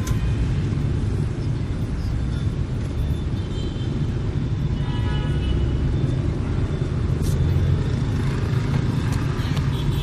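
Steady rumble of city street traffic, motorbikes and cars passing, with a couple of short pitched sounds about 3.5 and 5 seconds in.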